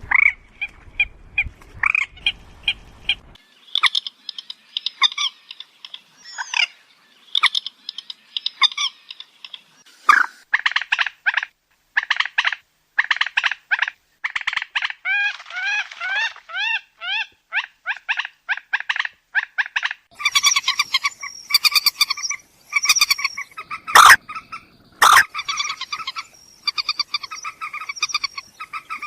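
Moorhen calls: bouts of short notes repeated in quick runs, some gliding up and down, with two sharp, loud clicks about a second apart near the end.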